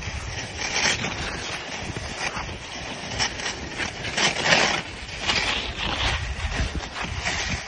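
Skis scraping and hissing over packed snow on a downhill run, in uneven surges, with wind buffeting the microphone.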